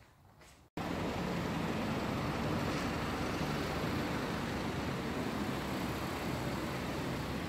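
Steady street noise of passing road traffic with a low rumble, starting abruptly a moment in after near quiet.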